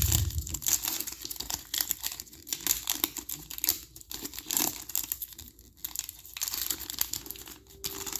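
A trading card pack's wrapper being torn open and crinkled by hand: an irregular run of crackling and tearing.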